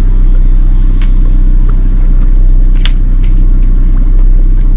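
Boat motor running steadily at low trolling speed, a loud low rumble. A single sharp click sounds about three seconds in.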